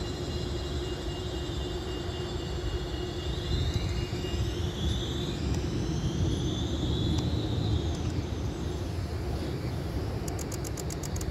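Tram passing: a steady low rumble with a high electric whine that glides up and then down through the middle. A quick run of high clicks comes near the end.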